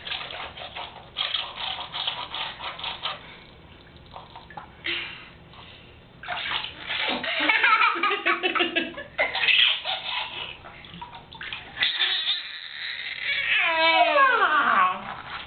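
Bath water splashing and sloshing in a tub, with high squeals that fall in pitch about seven seconds in and again near the end.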